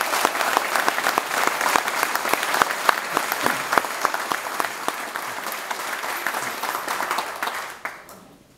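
Audience applauding, with hands clapping close by; the applause thins out and stops near the end.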